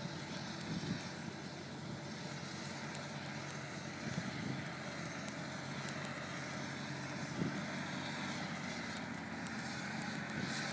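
Vehicle or heavy-equipment engine running steadily: a low, even hum under a constant rushing noise.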